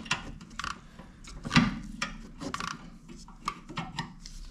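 Spanners turning out a rear brake caliper bolt: irregular metal clicks and scrapes as the bolt is worked loose.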